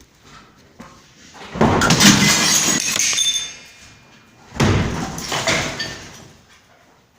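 Two loud crashes of breaking and clattering material, one lasting about two seconds and the second following about three seconds later, with some ringing in the first: something being broken or knocked down during renovation work.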